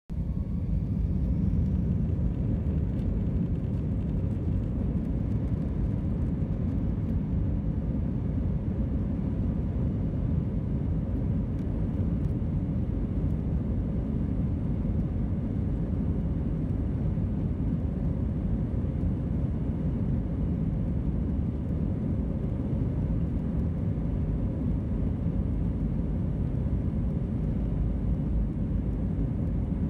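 Jet airliner cabin noise heard from a window seat: a steady low rumble from the engines as the aircraft taxis and rolls along the runway.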